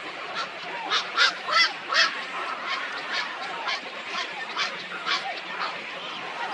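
A flock of birds calling over one another in many short, overlapping calls, with a cluster of loud calls about a second in.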